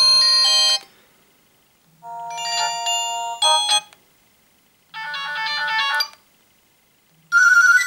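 Nokia 108 mobile phone playing short previews of its built-in ringtones through its loudspeaker as the ringtone list is scrolled: four brief electronic melodies, each about a second long with a pause between, the last starting near the end. A low buzz sits under three of them.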